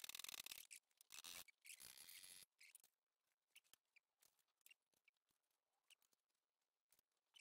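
Pencil drawing lines along a steel rule on thin card: three scratchy strokes in the first two and a half seconds, then only faint taps and rustles.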